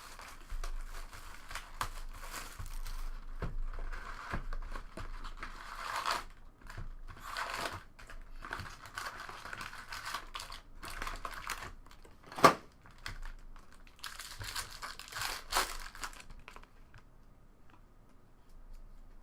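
Trading-card pack wrappers crinkling and tearing as packs are opened and cards handled, in irregular bursts, with one sharp tap about twelve seconds in. It dies down near the end.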